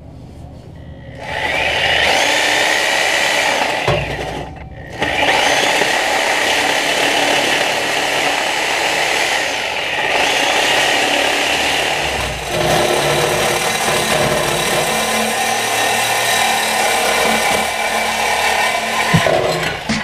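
DeWalt reciprocating saw cutting through a Subaru's metal exhaust pipe to remove the muffler and resonator, running steadily with a short stop around four seconds in. A few knocks near the end as the cutting stops.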